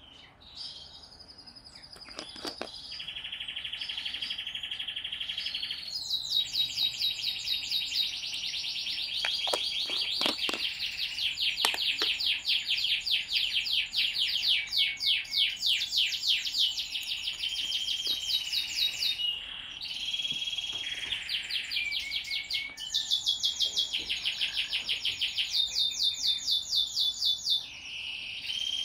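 Hybrid zebra finch × owl finch chick, 19 days old, calling almost without pause during hand-feeding: fast runs of high, short chirps, several a second, mixed with longer held high notes, typical of a begging nestling.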